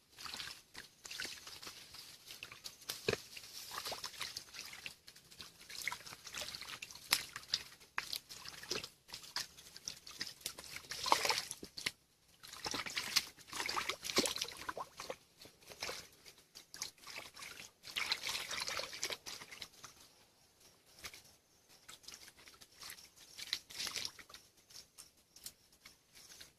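Hands splashing and sloshing through shallow muddy water while groping for fish by hand, in irregular bursts with quieter gaps between them.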